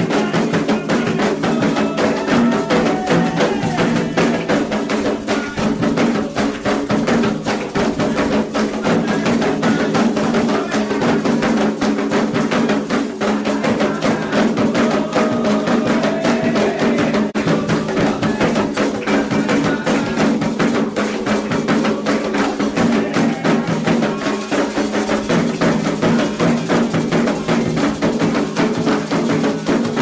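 Candomblé ritual drumming on atabaque hand drums, a fast, steady, unbroken rhythm, with a bell or struck percussion keeping a clicking time line over it.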